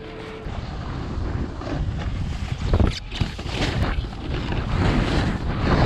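Wind rushing over the microphone of a hand-held camera carried by a snowboarder riding downhill, mixed with the hiss of the board sliding on the snow. It gets louder as the ride goes on, with a louder swell about three seconds in.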